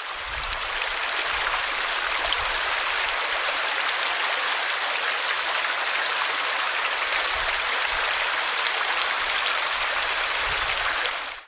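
Small stream splashing over rocks in a little cascade: a steady rushing of water that swells slightly in the first second and cuts off suddenly at the end.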